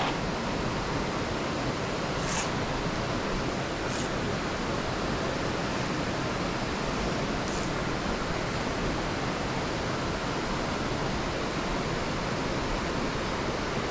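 Small mountain creek rushing and splashing steadily over rocks. A faint, brief high chirp sounds three times in the first half.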